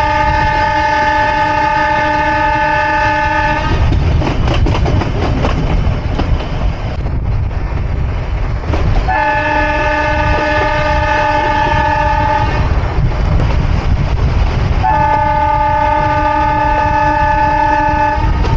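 Nilgiri Mountain Railway toy train's locomotive horn sounding three long, steady blasts, each about three and a half seconds, a few seconds apart, over the continuous rumble of the moving train.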